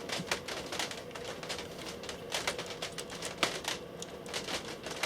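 Irregular light clicks and taps of small parts being handled during a dehumidifier fan repair, over a faint steady hum.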